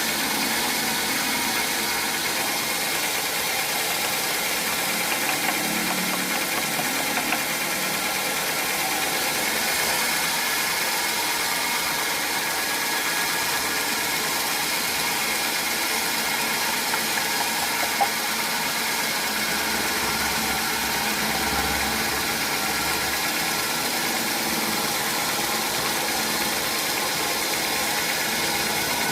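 Sawmill machinery running steadily with a constant mechanical hiss and hum, and a single sharp knock about 18 seconds in.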